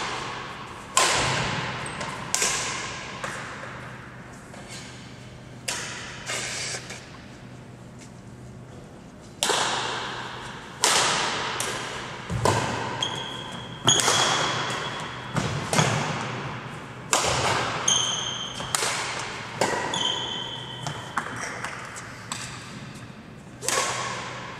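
Badminton rally: shuttlecock struck back and forth with rackets, a sharp smack every second or two, each ringing out in the echo of a large sports hall. Through the middle of the rally come short high squeaks, typical of trainers on the sports hall floor.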